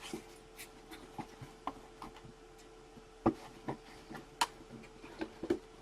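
Scattered light clicks and taps, a sharper click about three seconds in and another past four seconds, over a faint steady hum.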